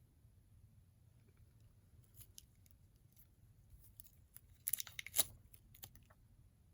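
Plastic packaging being handled and cut: scattered light clicks and crinkles, with a short burst of sharp crackles about five seconds in.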